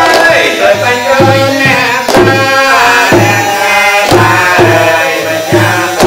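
Traditional wedding music: hand drums keep a steady beat of about two strokes a second under a sliding, ornamented melody, with a sharper struck accent every couple of seconds.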